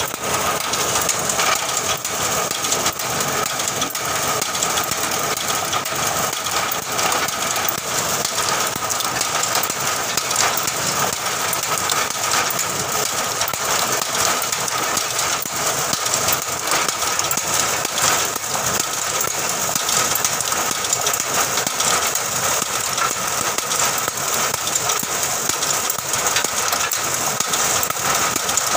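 Cashew nut shelling machine running steadily, with a dense rattle of nuts being cracked and split shells falling out.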